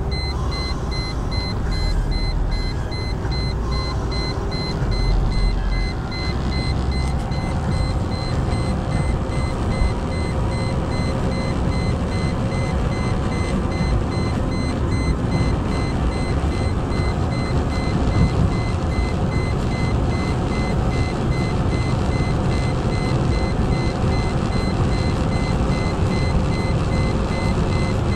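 Cabin sound of a Mercedes-Benz E240 at about 190 km/h: its V6 engine working hard under a steady rush of wind and tyre noise. A fast, evenly repeating electronic beep sounds over it, the overspeed warning chime of a Gulf-market car.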